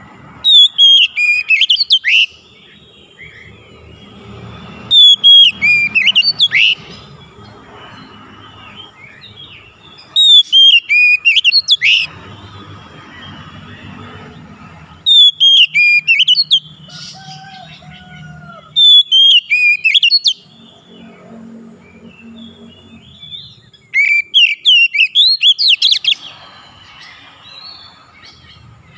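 Oriental magpie-robin (kacer) singing loudly. It gives six phrases of rapid, sharply sliding whistled notes, each about two seconds long and coming every four to five seconds. A low background rumble fills the gaps between phrases.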